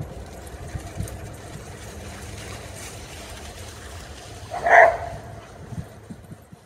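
A dog barks once, a little past the middle, over a steady low rumble.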